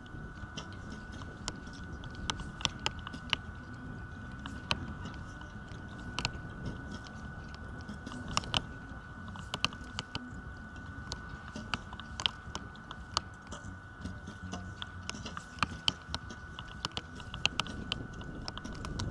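Wind rumbling on the microphone, with scattered sharp clicks and snaps from recurve bows being drawn and shot along the line, about one or two a second at irregular times.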